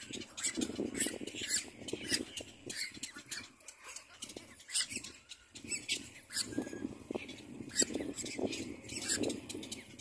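Little black cormorant chicks squawking at the nest: many short, harsh, high calls come in quick, irregular runs, over a lower, rougher chatter.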